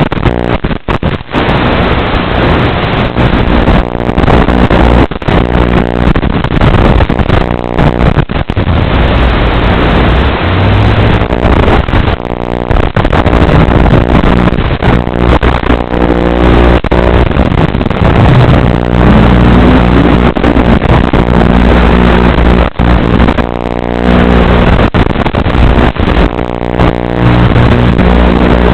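FPV quadcopter's brushless motors and propellers buzzing loudly, picked up by the onboard microphone and sent over the analog video link. The pitch shifts now and then with the throttle, and the sound is broken by several brief crackling dropouts in the signal.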